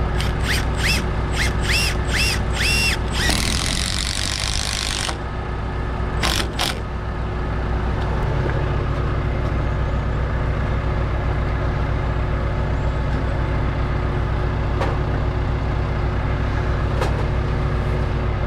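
A lift's engine running steadily, its pitch shifting slightly about eight seconds in. Over it come a quick run of short high tones in the first three seconds, then a hiss lasting about two seconds, then a few light hammer taps near the end.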